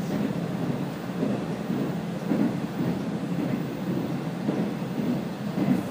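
Low, irregular rumble of a Kazekko KiHa 48 diesel railcar running along the line, heard from inside the car.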